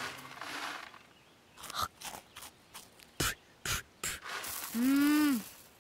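Cartoon sound effects: a soft whoosh, then a run of about eight light, irregular clicks, and near the end a short hum-like sound that rises and then falls in pitch.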